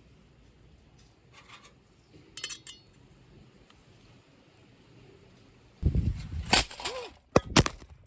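A few light clicks about two seconds in, then a louder run of sharp clinking and clattering of hard objects for about two seconds near the end.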